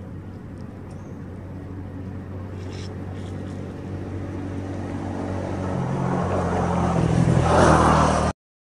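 A motor vehicle's engine, a steady low hum that grows louder as it draws closer, then cuts off suddenly near the end.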